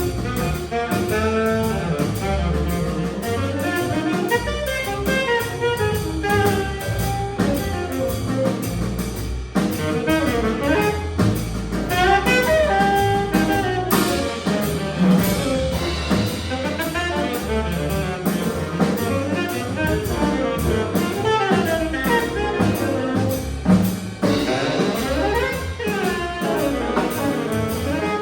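Jazz group playing, a saxophone carrying the melodic line over a drum kit.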